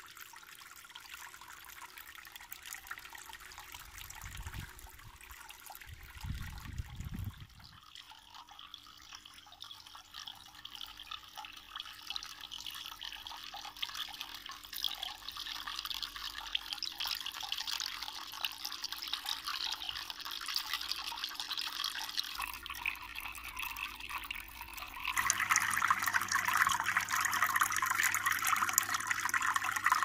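Streams of water falling from a row of holes in a PVC spray-bar pipe and splashing into a small cement fish tank, a steady splashing trickle that gets louder about three-quarters of the way through.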